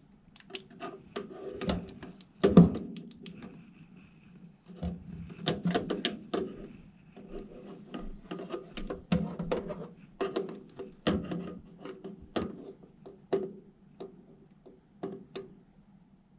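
Hands working on furnace parts and tools: an irregular run of knocks, clicks and clatters, the loudest about two and a half seconds in, over a steady low hum.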